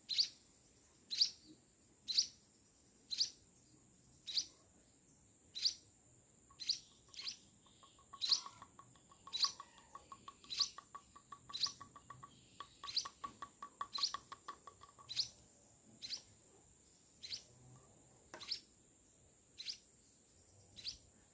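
A munia (emprit) chick calling: short high chirps that each drop in pitch, about one a second.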